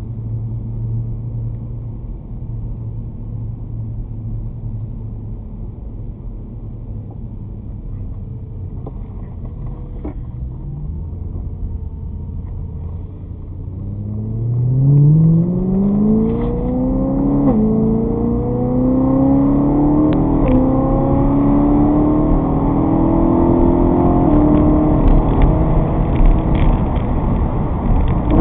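A vehicle engine idles with a steady low hum, then accelerates from about halfway through. Its pitch climbs, drops sharply at two gear changes a few seconds apart, and then holds at a steady cruising pitch.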